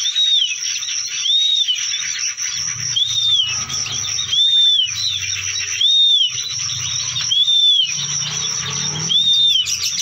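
A bird's short whistled call, each note rising and then falling, repeated seven times at about one-and-a-half-second intervals over a steady high-pitched tone.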